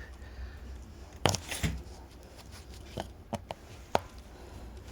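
Clicks and taps from handling a freshly set metal repair stud in a tyre's tread: about five short sharp clicks spread over a few seconds, over a low steady hum.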